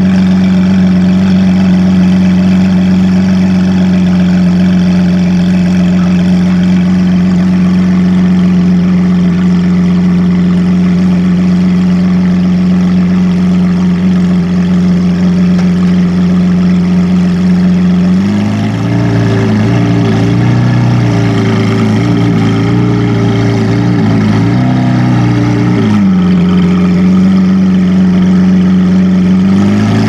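Supercar engine running at a steady speed with one even note. About 18 s in the note drops lower and wavers, goes back up to the steady note around 26 s, and drops again just before the end.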